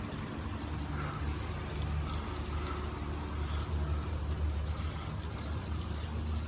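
Heavy rain falling steadily, with a steady low rumble beneath it and scattered faint ticks of drops.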